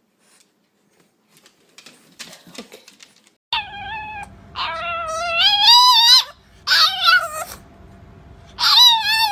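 French bulldog puppy vocalising: after a few faint rustles, about three and a half seconds in it starts a run of four long, high-pitched, wavering whining cries with short breaks between them.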